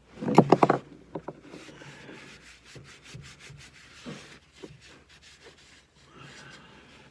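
A quick run of sharp clicks about half a second long near the start, then light scraping, rubbing and scattered clicks as tools and gear are handled.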